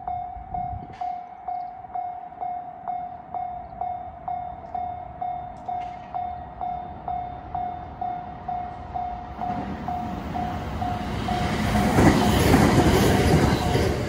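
Japanese level-crossing warning bell ringing steadily, about two strokes a second. From about ten seconds in, the rumble of a passing train builds over it and is loudest near the end.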